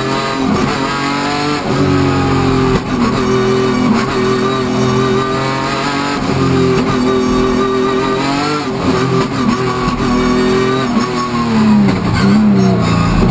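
Hyundai Genesis Coupe race car engine heard from inside the cabin, its revs climbing and dropping repeatedly through gear changes, with guitar-led music laid over it.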